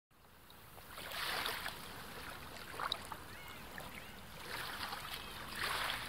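Ocean surf washing on the beach, coming in soft swells that rise and fall every second or two.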